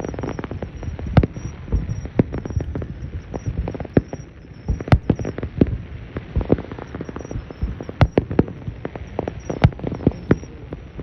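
Fireworks display in full barrage: a dense, irregular string of sharp bangs over a continuous low rumble, with the loudest reports about five, eight and nine and a half seconds in.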